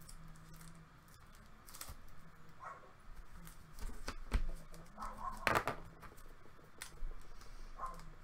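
Hands handling clear plastic trading-card holders and sleeves: crinkly plastic rustles with scattered sharp clicks and taps, the loudest a couple of clicks about four and five and a half seconds in.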